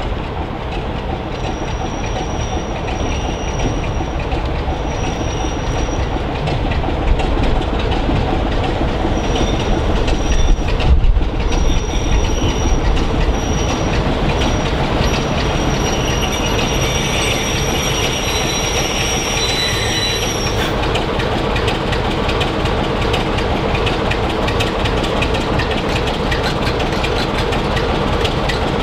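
Class 24 diesel locomotive D5054's Sulzer six-cylinder engine running as it hauls its coaches slowly along the platform. High squealing from the running gear comes and goes, stopping about two-thirds of the way in and leaving a steady engine note.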